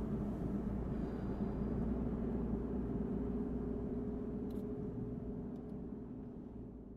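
Steady hum of a car's engine and cabin noise heard from inside the car, fading out near the end.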